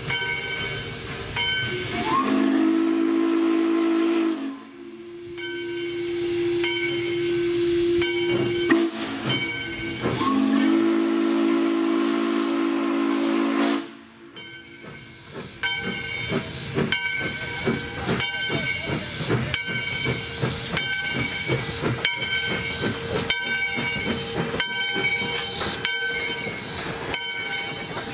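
Valley Railroad No. 40, a 2-8-2 Mikado steam locomotive, blows its three-chime Texas & Pacific whistle in three long blasts, the first about two seconds long and the next two longer. It then works past close by, with steady rhythmic exhaust and running-gear knocks, steam hiss and a repeated ringing underneath.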